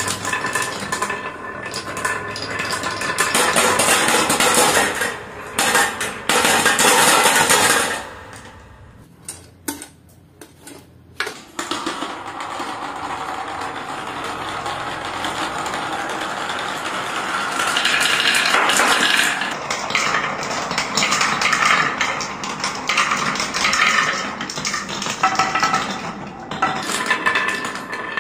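Marbles rolling and clattering down HABA plastic marble-run chutes, with many sharp clicks as they knock together and drop from one track piece to the next. About nine seconds in it briefly goes quieter with a few single clicks, then a steady rolling noise with clicks over it resumes.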